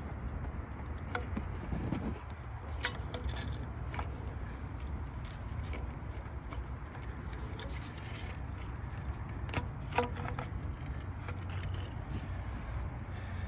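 Scrapes and light metallic clicks as the EGR-to-throttle-body pipe of a Land Rover Freelander 2 TD4 diesel, wrapped in a mesh heat sleeve, is worked loose and pulled out by hand. There are a few sharp clicks about a second in and around three seconds, and the loudest, a sharper knock, near ten seconds in, over a low steady background rumble.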